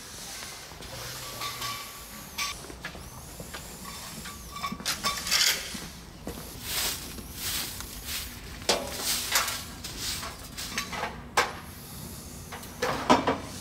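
Irregular scraping, rustling and clatter of an outdoor enclosure being cleaned: long metal tongs and a metal dustpan picking up panda droppings and dry straw, with knocks against a plastic bucket. The sharpest clatter comes near the end.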